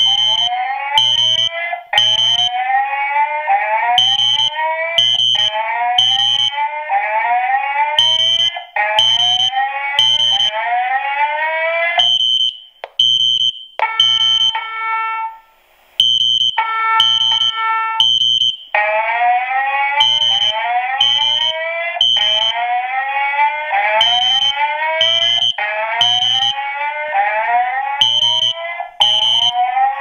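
Fire alarm voice-evacuation speaker strobe sounding the FireCom 8500 whoop/chime: a run of rising whoops, broken in the middle by a few chime tones, then more whoops. Over it, a horn beeps at a high pitch in groups of three with a pause between groups, the temporal-three evacuation pattern.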